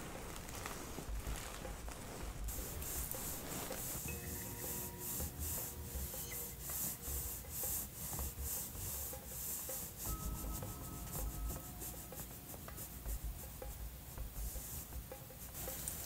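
Hands rubbing in repeated massage strokes, a soft swishing friction that picks up a couple of seconds in and runs at about two strokes a second.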